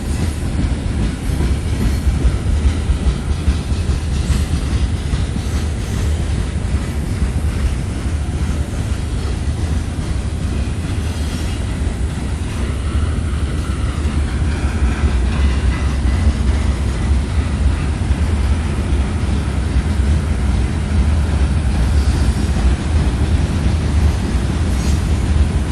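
CSX freight train's cars rolling steadily past at reduced speed, wheels clicking over the rail joints.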